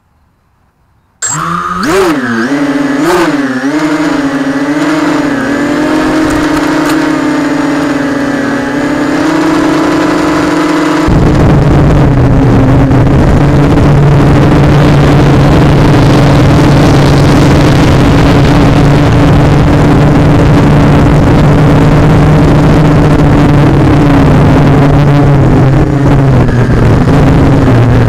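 Electric motors and propellers of an FPV quadcopter, heard through its onboard camera's microphone. After a moment of near silence the motors spin up with a wavering, jumping pitch as the craft lifts off, then settle into a steady multi-tone whine. About a third of the way in, a loud even rush of air joins the drone of the motors as it flies fast.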